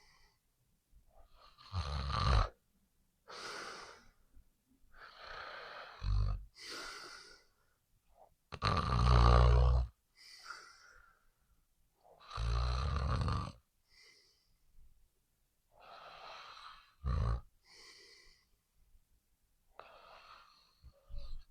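A sleeping person snoring: a loud, low snore about every four seconds, the loudest about halfway through, with softer breathy breaths between the snores.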